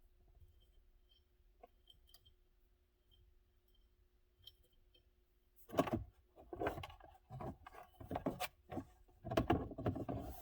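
Irregular clattering and rattling of small hard parts being handled, starting suddenly about halfway in, after a quiet stretch with a faint steady hum and a few light ticks.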